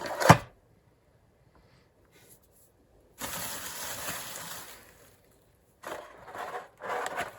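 Unboxing handling noises: a sharp knock just after the start, then packaging rustling for about a second and a half, then more short rustles and handling near the end.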